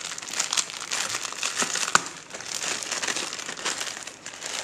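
Clear plastic wrapping crinkling and crackling as it is pulled off a block of foam sponge by hand, with one sharp crack about two seconds in.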